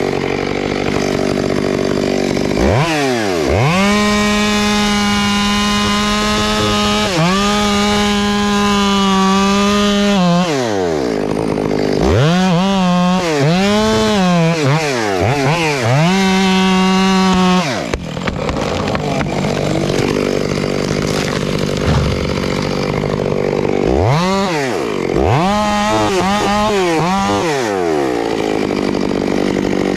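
Chainsaw cutting into a tree trunk. The engine is run up to full revs and held through a cut for several seconds, then blipped up and down in short bursts, then revved again near the end.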